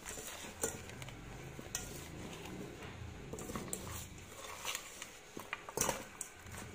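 Light clinks and taps of whole fish and fingers knocking against an aluminium pot while the fish are stuffed with sliced onion and herbs, with soft handling rustles between; the sharpest knock comes a little before the end.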